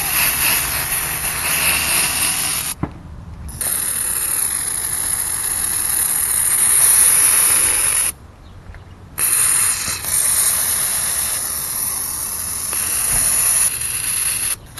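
Aerosol can of silly string spraying, a loud hiss in three long bursts with two short pauses between them.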